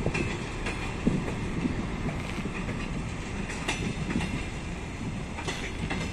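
Passenger coaches of an arriving train rolling past: a steady rumble of wheels on rails, with a few sharp clicks from the wheels, the clearest about a second apart near the end.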